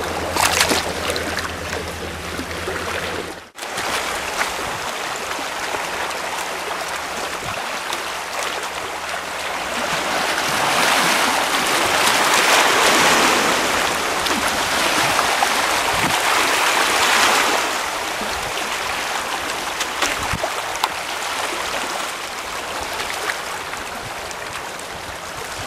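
Sea water washing and rushing over shoreline rocks, a steady wash that swells louder in the middle. A low steady hum sounds over the first few seconds and stops abruptly at a cut.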